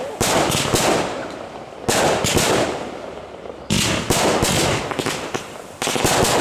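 Fireworks going off in volleys: four rapid clusters of sharp bangs and crackles, each starting abruptly and fading over a second or two, about every two seconds.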